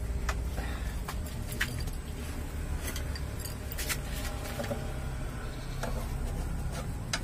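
Scattered light metallic clicks and clinks of hand tools and fittings as a truck's radiator hoses and mounts are worked loose, over a steady low rumble.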